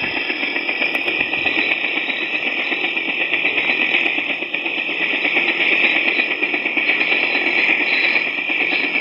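Shockwave V3 RC sound module playing its UH-1 Huey helicopter sound through a small speaker: a steady run of helicopter sound with a fast, even pulsing and thin bass.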